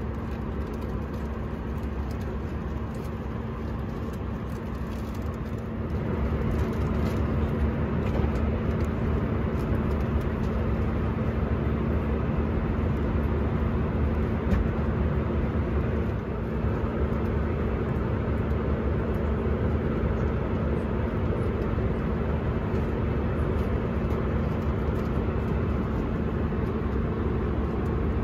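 Airbus A319 airliner cabin noise in cruise: a steady rush of airflow and engine noise with a low steady hum, a little louder from about six seconds in.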